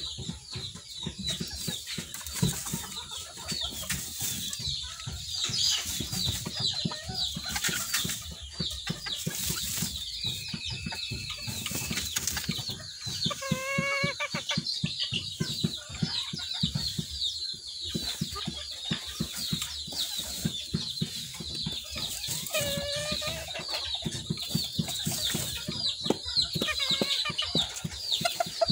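Old English Game bantam chickens in a pen, giving a short run of clucks about halfway through and another cluck later. Under them runs a constant high twittering and a scratchy patter of small clicks.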